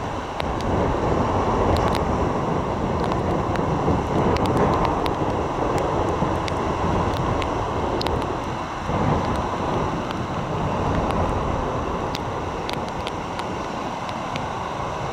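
Ocean surf washing and breaking on the beach, with gusty wind buffeting the microphone. The noise swells and eases over a few seconds.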